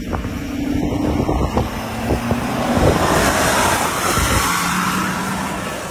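Spartan SUT armoured vehicle, built on a Ford F-550 chassis with a diesel engine, driving by on a dirt track: engine running with tyre and road noise that grows louder about three seconds in.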